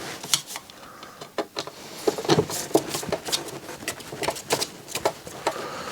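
Irregular light clicks and taps of a screwdriver and small metal parts being handled inside an opened micro hi-fi chassis as screws are worked out.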